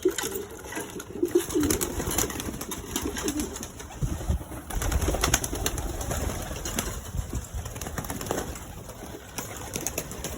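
Domestic pigeons cooing, with scattered sharp clicks and a low rumble from about four to seven seconds in.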